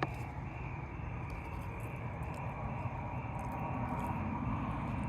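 Steady outdoor background noise, a low even rumble with a few faint ticks and no clear single source.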